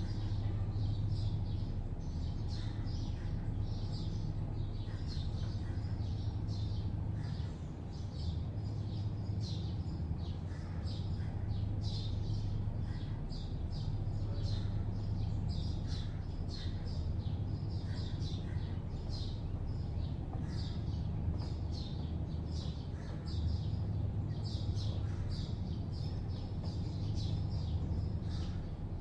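Many small birds chirping continuously in short, high notes, several a second, over a steady low hum of distant city traffic.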